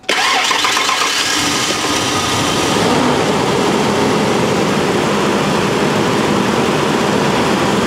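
1992 Ford Explorer's 4.0-litre V6 starting almost at once and then running steadily. It is catching on its newly replaced fuel pump, its first run on gasoline in years.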